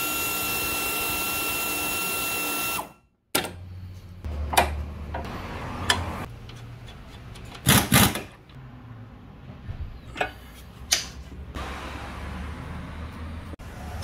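Air tools at work on a car's front suspension. A steady, high air-tool whine runs for about three seconds and cuts off abruptly. Then come scattered metallic clanks and knocks, with a short loud burst from a pneumatic impact wrench at the strut about eight seconds in.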